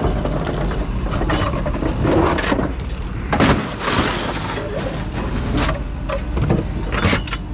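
Scrap Subaru car parts thrown off a truck onto a scrapyard pile: several separate metal crashes and clangs over a steady low rumble.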